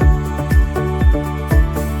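Background music with a steady beat of low drum hits about twice a second under sustained synth notes.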